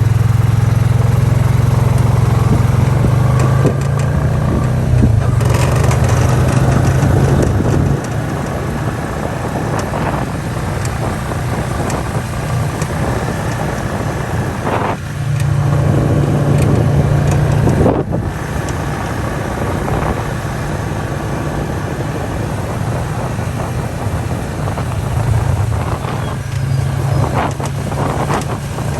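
Motorbike engine running while riding, its note rising and falling with the throttle and gear changes, over steady wind and road noise.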